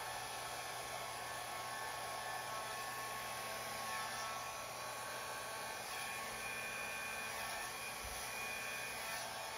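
Handheld hair dryer running steadily, its air blowing wet pouring paint out across a canvas.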